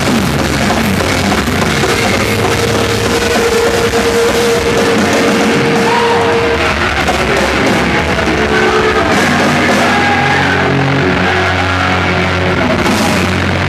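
Rock band playing live and loud, with a drum kit driving it and a note held for a few seconds near the middle.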